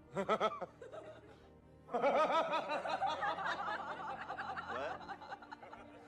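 People laughing: a short burst of giggling at the start, then about two seconds in several voices break into laughter together for a few seconds, fading near the end, over faint background music.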